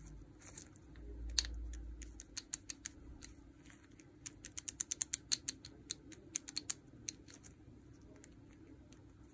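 Light clicks and taps of small parts and tools handled by hand while a cordless rotary hammer is taken apart, coming in quick runs of several a second in the middle, with a low dull bump about a second in.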